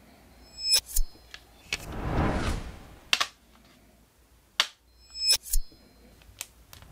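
Sharp clicks and snaps, two pairs of them with a brief metallic ring about a second in and again past five seconds, and a whoosh that swells and fades around two to three seconds in.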